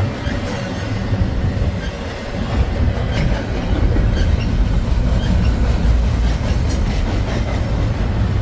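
Freight train cars rolling past: a steady low rumble of wheels on rail with irregular clicks and clacks.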